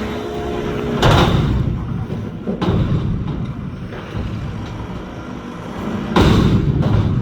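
Mack McNeilus front-loader garbage truck running, with two loud metal bangs, about a second in and about six seconds in, typical of a dumpster being banged out over the hopper as it is emptied.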